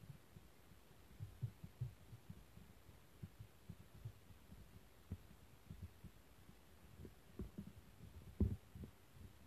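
Faint, irregular low thumps and bumps over a quiet background, the loudest about eight and a half seconds in.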